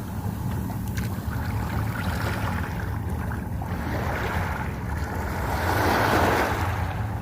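Sea waves washing onto the shore, their rush swelling and fading every few seconds over a steady low rumble.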